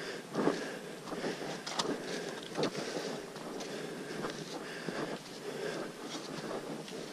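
Footsteps on a muddy dirt trail, irregular steps about one or two a second, over a steady rustling hiss of air and clothing.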